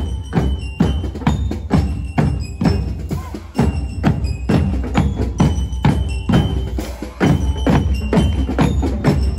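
Marching percussion band playing: bass drums and snare drums keep a steady beat of about two strokes a second, with short bright ringing notes over it.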